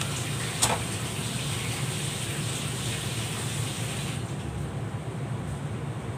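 Steady kitchen noise: a low hum with a hissing rush over it that stops suddenly about four seconds in, and a single sharp click under a second in.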